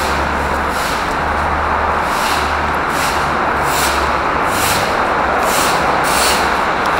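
Loud, steady road-traffic noise, a dense hiss over a low rumble, with faint light ticks at irregular intervals.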